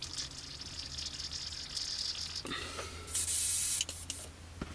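Airbrush hissing as air is let through, then a louder spray burst of under a second about three seconds in and a shorter one just after: a test spray of freshly loaded acrylic paint to check the flow.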